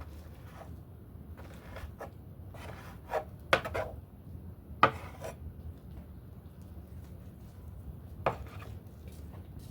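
Kitchen work: scattered knocks and rasping scrapes of utensils or food being handled, with sharper strikes about three and a half, five and eight seconds in.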